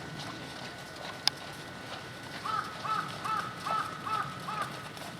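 A bird calling six times in quick succession about halfway through, each call a short note that rises and falls in pitch. A single sharp click sounds about a second in.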